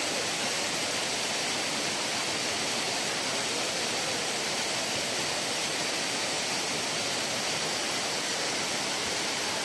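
Rain-swollen stream in flood, muddy water rushing steadily over rocks and rubble.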